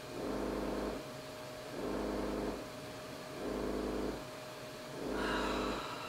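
Inversion table's built-in massage pad running on a pulsing setting: its vibration motor hums in regular bursts just under a second long, about one every 1.6 seconds.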